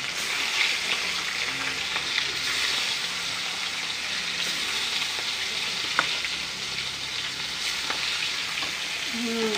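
Gota fish pieces frying in hot mustard oil: a steady sizzle with fine crackling, and a few sharp spattering pops, the loudest about six seconds in.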